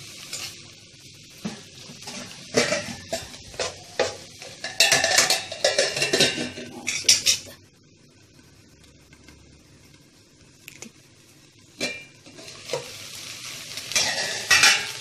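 Steel ladle stirring and scraping a leafy fry in a steel kadai, clinking against the pan over light sizzling. The sound drops away for several seconds about halfway through, then the stirring and sizzling start again near the end.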